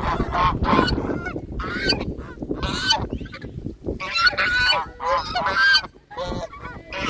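Domestic geese honking, about ten short calls one after another with brief gaps between them.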